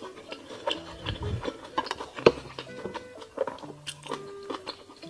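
Soft background music of short held notes, with scattered sharp clicks and taps over it; the loudest click comes a little over two seconds in.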